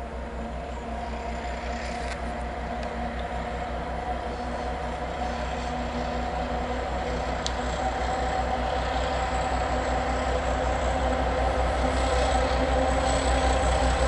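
Diesel locomotive hauling a train as it approaches: its engine runs with a steady low throb that grows gradually louder as it comes closer.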